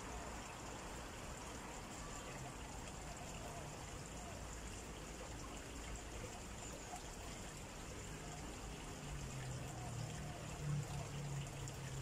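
Steady outdoor background hiss, even and without clear events. A low hum comes up in the last few seconds.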